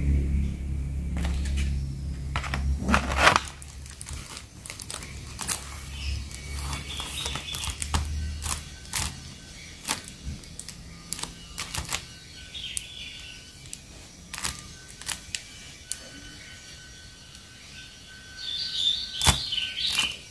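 Hands handling plastic sticker packaging: a string of clicks, taps and crinkles as the plastic trays and wrapping are moved and pressed. A low steady hum, like a vehicle engine, fades out about three seconds in.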